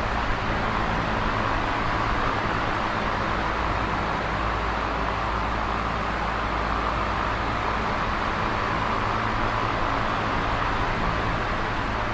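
Electric fan running steadily: an even whoosh of moving air over a low motor hum, with no changes in speed.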